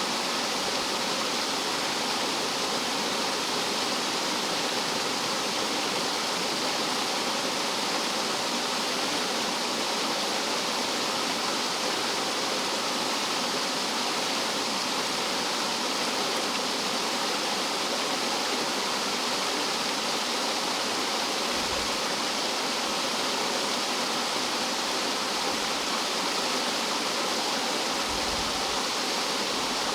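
Rough mountain-stream water tumbling over rocks like a small waterfall: a steady rushing.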